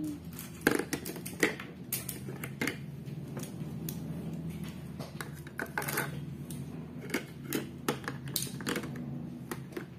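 Plastic toy dishes and cutlery clicking and clattering as they are set into a toy sink and its dish rack: a run of irregular light knocks, some sharper than others.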